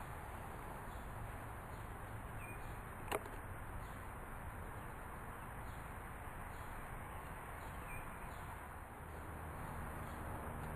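Steady outdoor background noise with a few faint bird chirps and a single sharp click about three seconds in.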